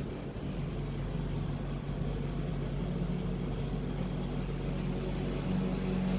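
Steady low mechanical hum with several held low tones, one of which swells near the end.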